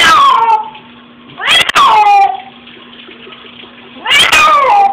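A cat yowling three times in distress, each long cry starting high and sliding down in pitch. A faint steady hum sounds between the cries.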